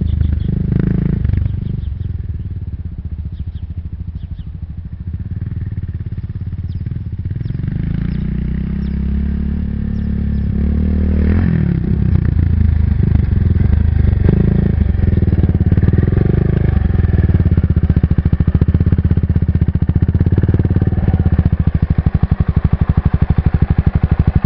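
Kawasaki KLX650R single-cylinder four-stroke dirt bike engine, fading as the bike rides away, then growing louder as it rides back, its pitch rising and falling around the middle. In the last third it runs steadily close by with an even, rapid beat.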